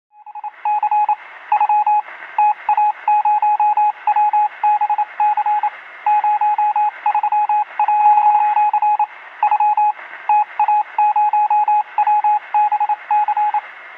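Morse code: a single steady beep keyed on and off in short and long pulses, over a hiss of radio static.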